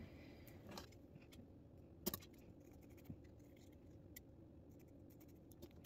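Scissors cutting window screen mesh: a few faint, scattered snips, the clearest about two seconds in.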